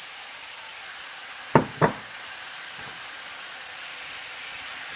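Diced dosakai (yellow cucumber) and tomatoes sizzling gently in oil in a stainless steel pan, a steady hiss. About a second and a half in come two sharp knocks against the pan, close together.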